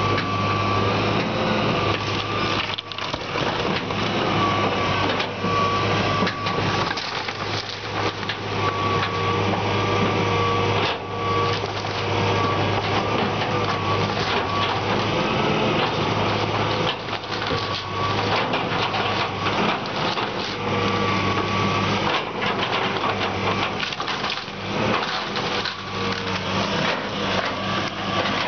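John Deere 230C LC excavator crushing and tearing apart a wood-frame house: the diesel engine runs with a steady hum and a wavering whine under repeated cracking, splintering and crashing of timber and debris.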